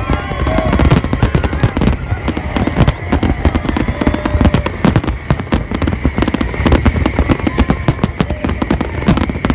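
Fireworks display: a dense barrage of aerial shells bursting, many bangs a second without a break.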